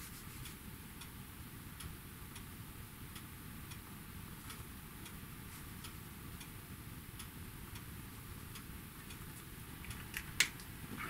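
A clock ticking steadily, about one tick every half second. About ten seconds in, one sharp louder click comes as the felt-tip marker is handled, likely its cap being snapped on.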